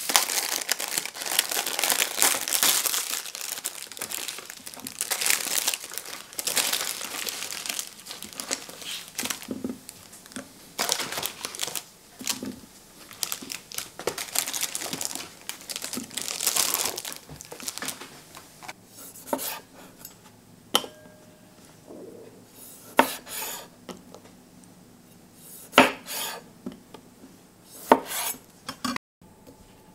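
Plastic packaging crinkling and rustling as cherry tomatoes are taken out of their packet. In the second half this gives way to scattered sharp knocks of a kitchen knife on a wooden chopping board as the tomatoes are cut in half.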